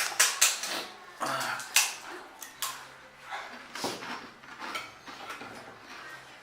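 Crisp pani puri shells crunching as they are bitten and chewed, a dense run of sharp cracks in the first two seconds, then scattered crackles.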